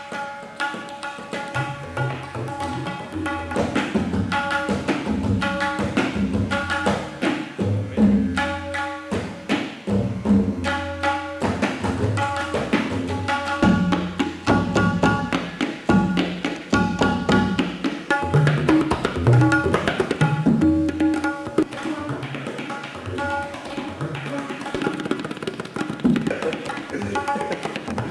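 Music: a rhythmic piece with drums and percussion over held pitched instrument notes.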